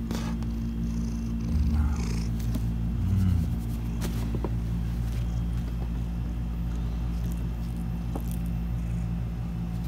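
Domestic cat purring steadily, recorded close up.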